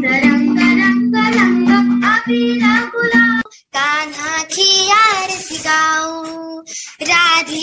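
A girl singing over a steady held accompanying note. About three and a half seconds in it cuts off abruptly, and another girl's unaccompanied solo singing begins.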